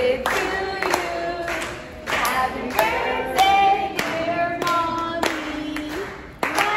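Several voices singing together, with hand claps keeping the beat.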